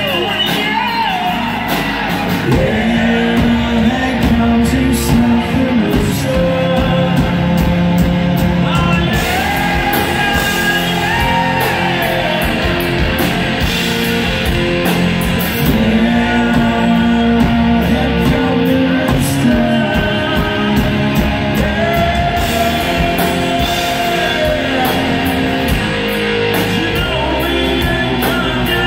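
A rock band playing live: long, bending sung notes over electric guitars and a drum kit with steady cymbals.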